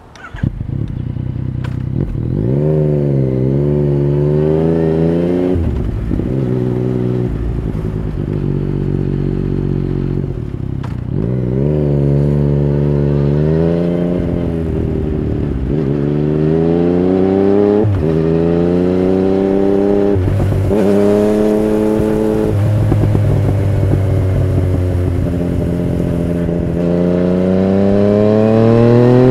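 Yamaha naked motorcycle's engine pulling away at low speed. Its note rises and drops back at each of several gear changes, holds steady briefly, then climbs again near the end.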